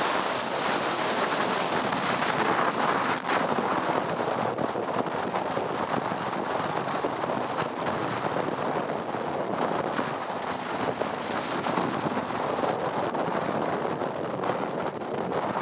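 Steady rushing noise of a bus ride heard from inside the bus, with the tyres running through floodwater on the road and a few brief knocks or rattles.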